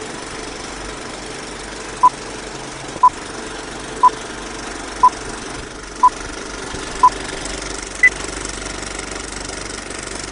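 Film-projector sound effect: a steady mechanical rattle, with a film-leader countdown beep every second, six short beeps at one pitch and then a seventh, higher beep.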